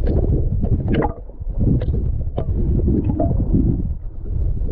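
Underwater sound picked up by a submerged camera in the sea: a loud low rumble of moving water, with a few sharp clicks scattered through it.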